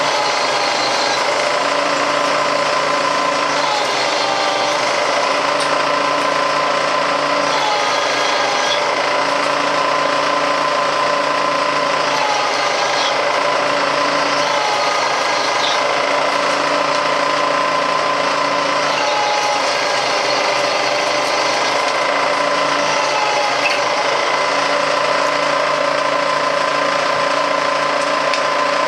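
Shop machine tool cutting aluminium, running steadily with a steady whine, its sound swelling and easing in a regular cycle about every four seconds.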